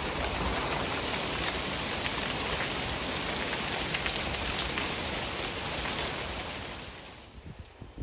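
Rain falling hard, a steady hiss with scattered sharp ticks of drops striking, fading away near the end.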